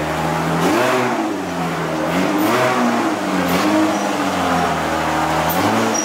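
Car engine running under light throttle as the sedan creeps off, the revs rising and falling four times in a few seconds. The driver is feathering the gas on a manual gearbox with a performance clutch that bites right at the start of the pedal travel, to keep from stalling again.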